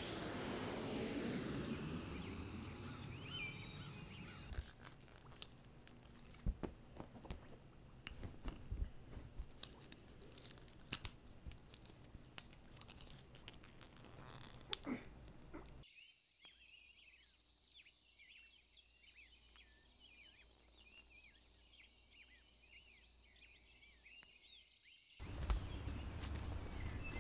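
A smooth sweeping sound, then many small sharp clicks and crackles of something small being handled. About 16 seconds in it gives way to a steady high chorus of insects and birds chirping, and a louder outdoor rumble comes in near the end.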